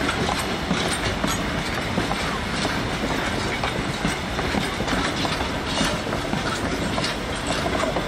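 Red heritage passenger carriages rolling past on the track: a steady rumble of wheels on rail with irregular clicks and clacks as the wheels cross the rail joints.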